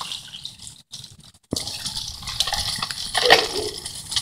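Water splashing and sloshing in a shallow puddle. The sound drops out briefly about a second in, comes back abruptly, and is loudest a little past three seconds in.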